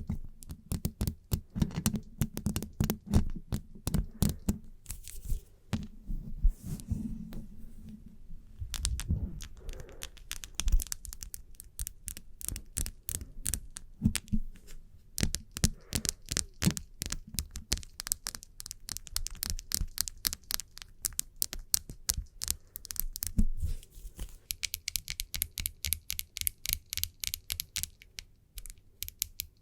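Fingernails tapping in quick, irregular clicks, mixed with hands rubbing together as a hissing, brushing sound that comes through most strongly for a few seconds near the end.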